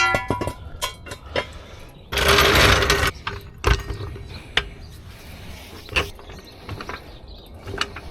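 Metal tools and equipment being handled: a ringing clank at the start, a one-second scraping rush about two seconds in, then scattered single knocks.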